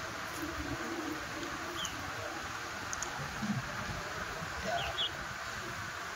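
A few faint, short, high bird chirps, about two seconds in and again near five seconds, over a steady background hiss.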